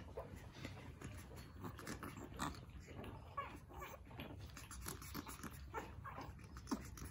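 Puppies play-fighting, making short, irregular little growls and yips at a fairly low level.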